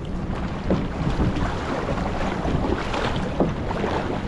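Wind buffeting the microphone over water rushing and splashing along the hull of a paddled outrigger canoe, with the paddle's strokes splashing irregularly.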